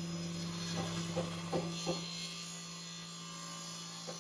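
A steady low hum with four light knocks between about one and two seconds in, and another near the end.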